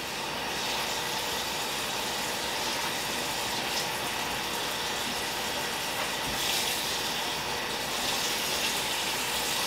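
Steady hiss from the stovetop as a skillet heats over a lit gas burner.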